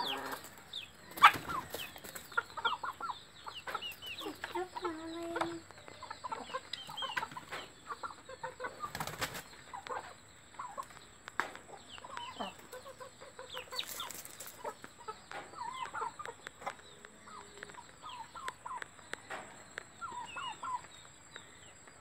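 Aseel chickens clucking, with many short high calls scattered throughout. A few sharp knocks come through, the loudest about a second in.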